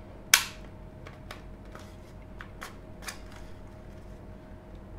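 A plastic snap-fit clip on a Cisco Linksys E900 router's case snaps loose sharply about a third of a second in as a plastic card pries the top cover open. Light clicks and scrapes follow as the card works along the plastic seam.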